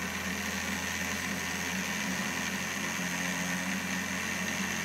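Small electric motor driving a pillar-tool drill spindle, running steadily at speed while a No. 50 oil hole is drilled through a bronze bearing.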